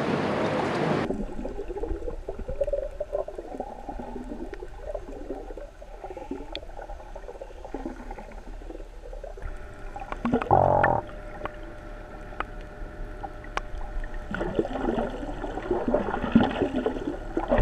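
Sea water heard from a camera held underwater: muffled sloshing and gurgling, with a short louder sound about two-thirds of the way through. It is preceded by about a second of wind and waves above the surface.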